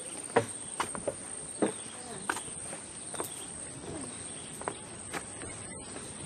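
A steady high-pitched insect trill, with a few sharp knocks scattered irregularly through it.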